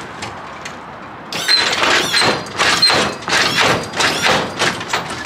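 Lowrider hydraulic suspension on a Chevrolet El Camino being worked from the switches. About a second in, a loud run of irregular squeaks and clunks starts as the front end moves.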